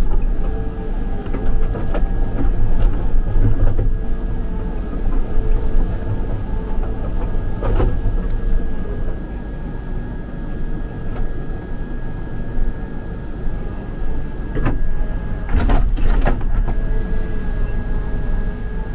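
Backhoe engine running steadily under a high steady whine, with a few short clanks.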